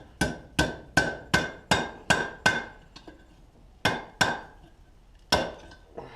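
Hammer blows on hot 1/4 inch round bar being bent over the tip of an anvil's horn, each strike with a short metallic ring: a quick run of about eight blows, a pause, two more, then a single blow.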